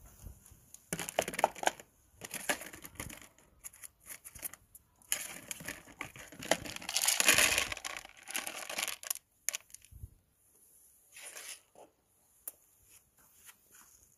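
Plastic bag crinkling and rustling in irregular bursts as food is shaken out of it into a plastic tub, loudest about halfway through. Fainter crinkles and small clicks follow near the end.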